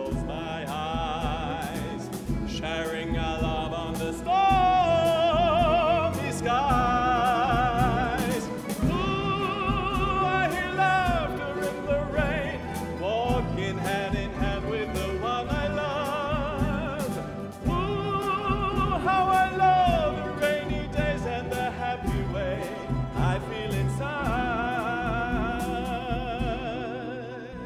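A tenor sings a ballad melody with wide vibrato, accompanied by a plucked-string orchestra of mandolins, mandolas, guitars and double bass.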